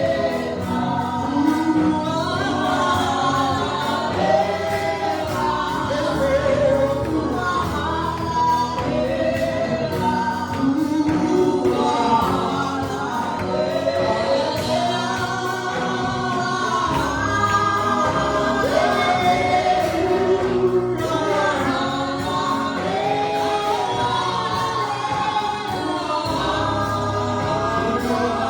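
Church congregation singing a gospel worship song together, many voices in unison over a steady low accompaniment.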